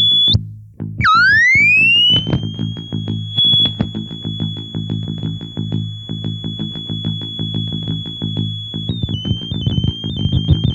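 Circuit-bent Waldman flanger pedal making electronic noise: a high whistling tone cuts out briefly, then sweeps back up from a low pitch and holds steady over a dense, rapidly stuttering low buzz. Near the end the whistle wobbles up and down in small jumps.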